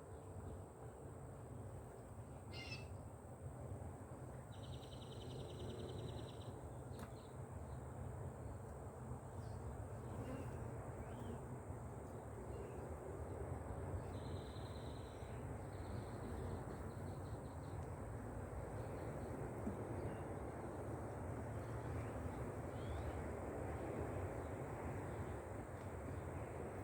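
Honeybees buzzing in a steady drone around an open, freshly smoked hive, with a few short bird trills and chirps in the background.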